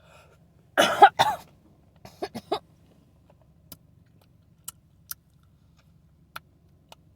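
A man coughs loudly twice about a second in, then gives a few shorter, quieter coughs or throat-clears. Scattered faint clicks follow.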